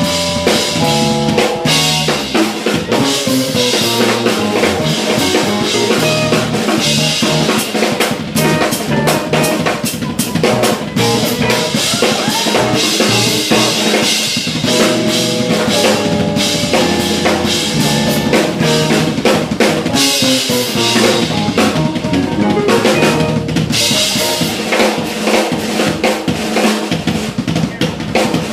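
Live jazz-fusion band playing, with the drum kit loud and busy: fast snare and bass-drum hits over electric guitar, bass and keyboard.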